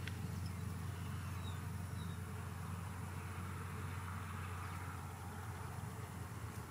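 A steady low mechanical hum with a fainter hiss above it.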